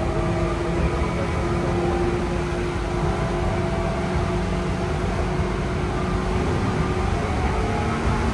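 Seibu 4000 series electric train running at steady speed, heard inside the passenger car: a continuous rumble of wheels on rail under a steady whine of several tones from the motors and gears.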